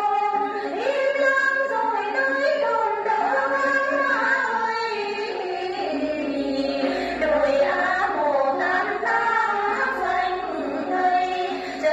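A group of women singing a Then song together, to the plucked đàn tính, the long-necked Tày lute. The sound comes through a television's speaker.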